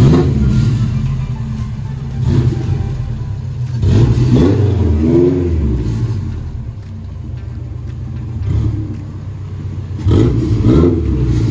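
Honda B20 inline-four engine of a car being driven, revving up and down in rising and falling surges as it accelerates. The strongest surges come about four seconds in and again near the end.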